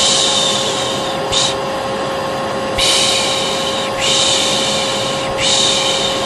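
Hair dryer running steadily, with rhythmic shushing ('piş piş') over it about once every second and a half, played as white noise to soothe a colicky baby.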